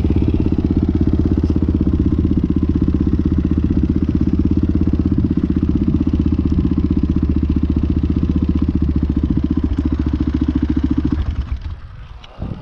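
Enduro dirt bike engine running steadily at low speed, heard from on the bike, then cutting out about eleven seconds in as the bike rolls to a stop.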